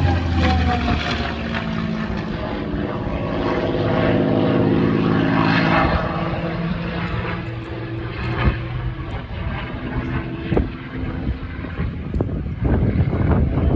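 Propeller-driven aerobatic airplane's engine and propeller passing low, the propeller howl dropping in pitch as it goes by and then running steadily. In the second half it fades into rougher noise with scattered thumps of wind on the microphone.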